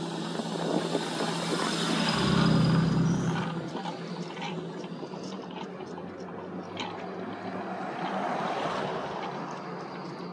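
Rushing wind noise on a handheld camera's microphone while riding an electric bike, over a steady low hum. It swells loudest about two to three seconds in, eases, then rises a little again near the end, with a few faint ticks in between.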